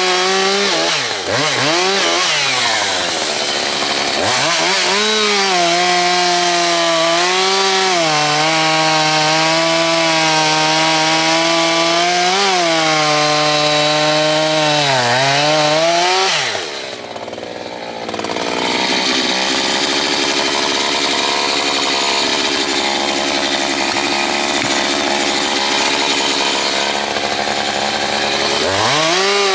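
Echo CS-620P two-stroke chainsaw running at high revs while cutting firewood, its pitch sagging and recovering several times as the chain loads up in the wood. Around the middle it drops briefly, then runs rougher with a less distinct pitch before climbing back near the end.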